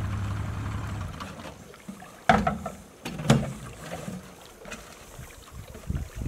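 Low hum of a boat's outboard motor fading out about a second in, then two sharp knocks about a second apart and a few fainter clicks on the aluminum work boat.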